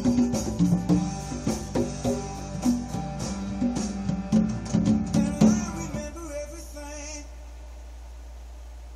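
Conga drums played by hand along with a song with guitar and singing. The music stops about six seconds in, a last note dies away, and only a low steady hum is left.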